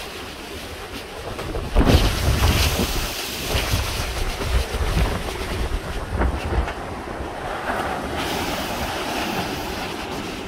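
Hurricane winds gusting hard over the microphone in heavy, uneven rumbles that pick up about two seconds in, over the steady wash of surf breaking on the beach.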